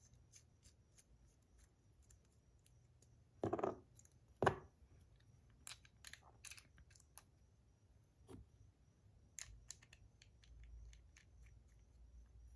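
Faint clicks and light taps from a titanium fidget spinner and its buttons being handled, with two louder short sounds about three and a half and four and a half seconds in.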